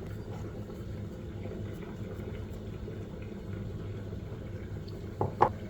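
Steady low hum in a small room with faint ticks, then two short light knocks near the end.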